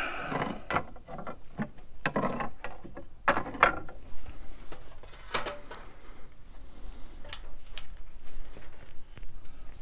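Scattered clicks, knocks and short rustles of tools and parts being handled, busiest in the first few seconds; no drill motor is running.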